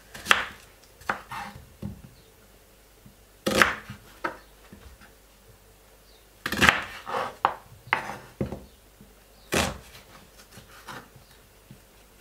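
Kitchen knife cutting through a white onion and striking a wooden cutting board: irregular cuts, with four louder strokes about three seconds apart and lighter taps and slicing between them.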